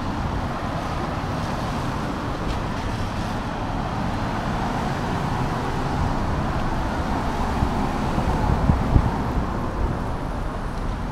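Street traffic on a rain-wet road, tyres hissing, with wind buffeting the microphone in a steady low rumble.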